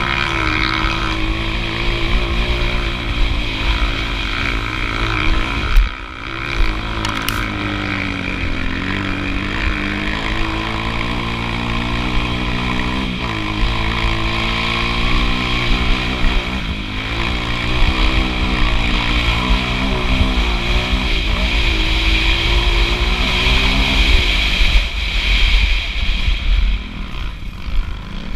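Motocross bike engine under racing load, heard from the bike itself, its revs rising and falling over and over with throttle and gear changes. A sharp thump comes about six seconds in, and the engine drops off briefly just after it.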